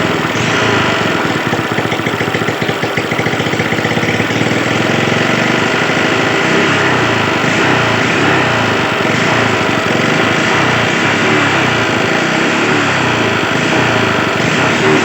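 An old engine running steadily at an even speed, with a fast, regular firing beat.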